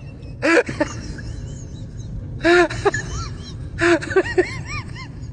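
A baby's voice squealing and giggling in three short bursts, each a breathy squeal followed by a quick run of rising-and-falling giggles.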